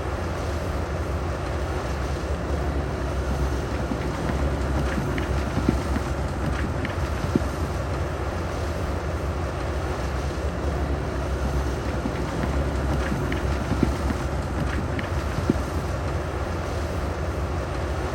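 Heavy bulldozer diesel engine running steadily with a deep rumble, broken by a few sharp knocks.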